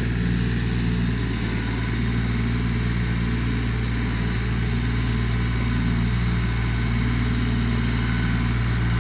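2018 Mahindra 1526 shuttle compact tractor's three-cylinder diesel engine running steadily as the tractor drives across the dirt pulling its rear blade.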